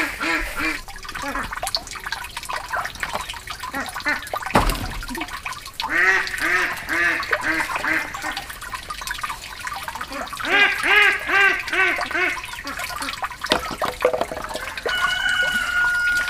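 Ducks quacking in three runs of rapid, repeated quacks, with one dull thump about four and a half seconds in. A thin, steady whistling tone enters near the end.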